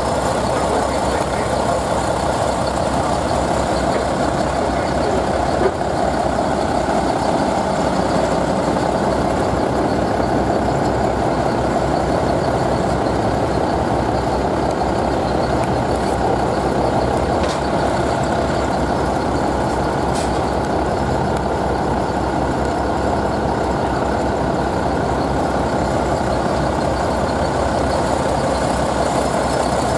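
A large vehicle engine running steadily, holding the same pitch and level throughout.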